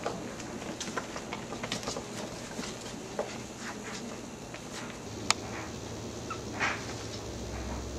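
Bichon puppies moving about on bedding and a cardboard box: scattered small clicks, taps and rustles, with one sharper click about five seconds in.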